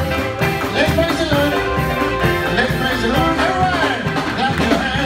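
Live gospel band playing an upbeat song with a steady beat, guitar and a voice singing over it.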